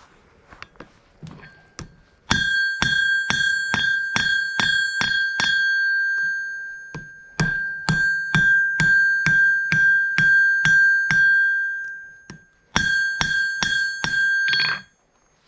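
Hand hammer striking hot steel on an anvil at about two to three blows a second. The blows come in three runs with short pauses between them, and the anvil rings with a clear high tone that carries on between blows.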